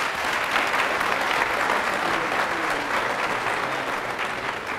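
An audience in a large hall applauding, with the clapping holding steady and starting to fade near the end.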